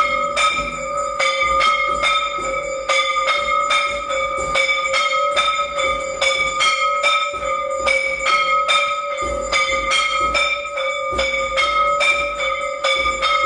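Temple aarti bell rung rapidly and without a break, about two to three strikes a second, its tone ringing on between strikes.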